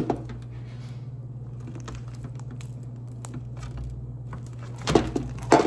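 Slime being kneaded and pulled by hand: faint sticky clicks and squelches over a steady low hum, with a couple of louder sharp snaps near the end.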